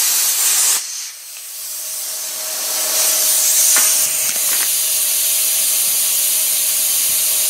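Hypertherm Powermax 45 plasma cutter finishing a cut through 1-inch steel plate: the arc's loud hiss cuts off under a second in, then a steady rush of air builds up and carries on, with a faint steady hum and a couple of clicks.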